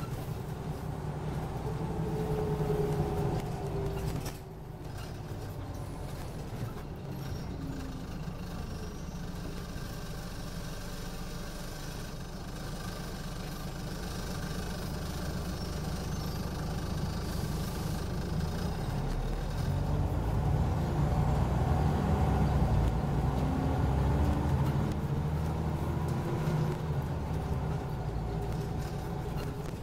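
Diesel engine of a Scania OmniCity N94UD double-decker bus, heard from inside the saloon as a steady low rumble. Its note falls and the sound drops about four seconds in. From about twenty seconds the pitch climbs and the sound grows louder as the bus pulls away under power.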